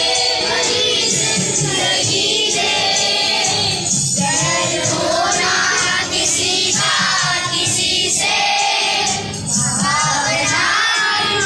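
A group of children singing together in unison.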